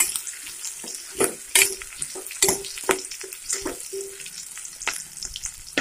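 Chopped onions, green chillies and garlic sizzling in hot oil in a pan while a spoon stirs them, with irregular sharp crackles and spoon scrapes against the pan.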